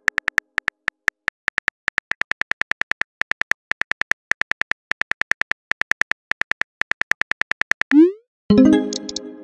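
Simulated phone keyboard typing: a steady run of short pitched key clicks, about five a second. About eight seconds in they stop, a quick rising whoosh of a message being sent follows, and then a short ringing chime of several tones.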